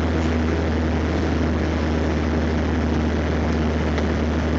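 Steady engine and road noise of a car driving along, heard from inside the cabin, with a constant low hum under it.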